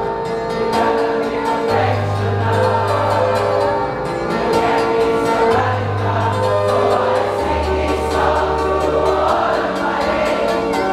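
Slow song sung by a large group of voices over music, with held chords and a deep bass note that changes every couple of seconds.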